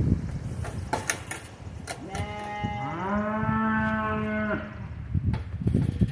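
A goat giving one long, low bleat that rises at the start and then holds steady for about two seconds. A few light clicks come before it.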